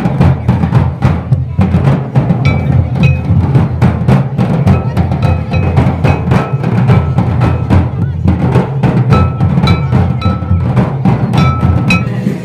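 Live Santali folk drumming: several barrel drums beaten in a fast, dense rhythm, with short high notes repeating over it from about two seconds in.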